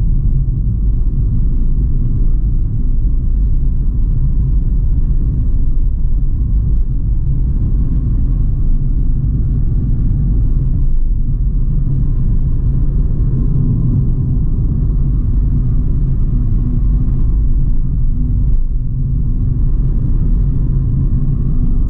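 Steady engine and road rumble heard from inside a moving car.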